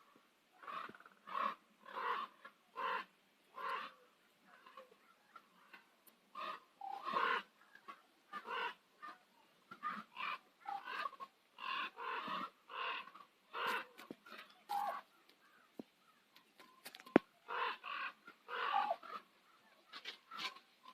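Common ravens calling, a long run of short calls coming a call or two each second with brief gaps, and one sharp click about 17 seconds in.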